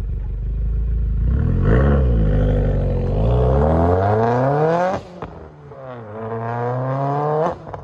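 Subaru F-series (FA/FB) flat-four engine with an equal-length header, running steadily and then revving up, with a quick blip and then two long climbs in pitch. Each climb drops off sharply. Its note is smooth and flat, without the uneven boxer rumble.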